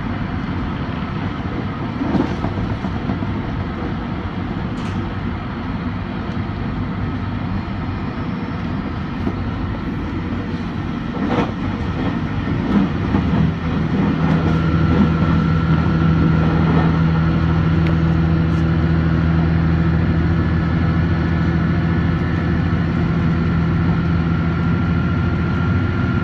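Chizu Express HOT7000-series diesel multiple unit running at speed, heard from just behind the cab: a steady rumble of engine and wheels on rail, with a few sharp clicks. About halfway through it gets louder, and a steady engine drone with a faint high whine sets in and holds.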